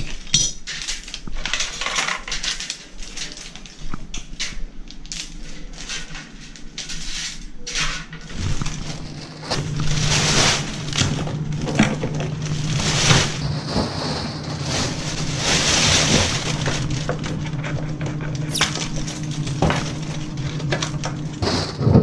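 Clutter being handled and bagged: plastic bags rustling, with knocks and clattering of wire, plastic and other junk. About eight seconds in, a steady low hum comes in and stays under the rustling.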